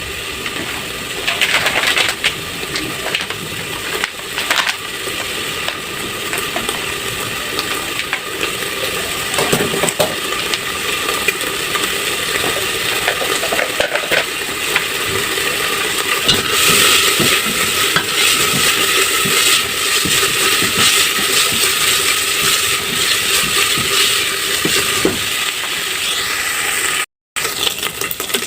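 Food sizzling in a hot pan while a spoon stirs it, scraping and clinking against the metal.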